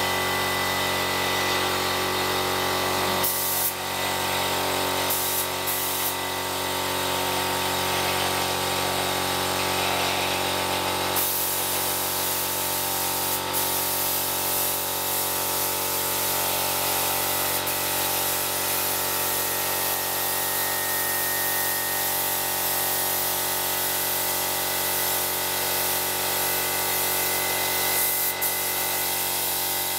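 Air compressor running steadily, with the hiss of a spray gun spraying white paint; the spray hiss grows stronger about eleven seconds in.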